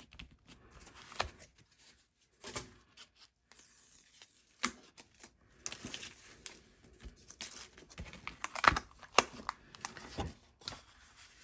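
Cardboard pieces and paper being handled and set down on a work surface: scattered light clicks, taps and rustles with short pauses between, the sharpest taps about nine seconds in.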